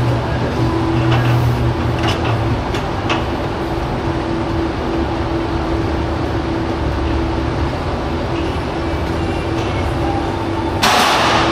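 A steady mechanical hum runs throughout, while a plate-loaded strongman yoke is lifted and carried. A few faint knocks come in the first few seconds, and a loud burst of noise comes near the end.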